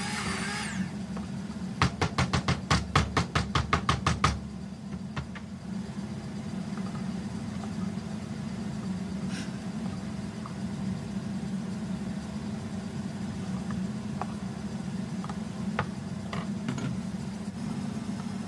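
An immersion blender's motor whirs with a wavering pitch and cuts off under a second in. Then comes a quick run of about a dozen knocks, some five a second, lasting about two seconds. After that a steady low hum continues, with a few faint clicks.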